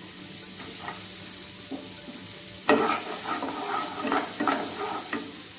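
Chopped onion, garlic and green chillies sizzling in melted butter in a non-stick kadai. About two and a half seconds in, a spatula starts stirring and scraping them around the pan, louder than the sizzle.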